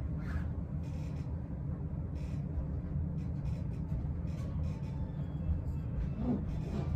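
Soft, scattered rustling of fabric as a sofa cushion is worked into its cover, over a steady low rumble.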